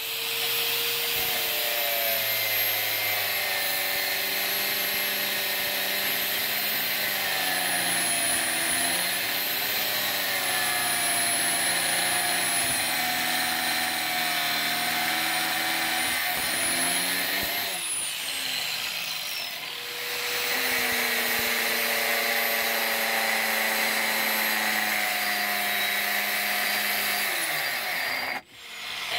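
Angle grinder with a thin cut-off wheel cutting through the old steel of an axe head held in a vise: a steady motor whine whose pitch wavers as the wheel bites. About two-thirds of the way through the whine sweeps down and fades, then comes back up to speed and carries on cutting.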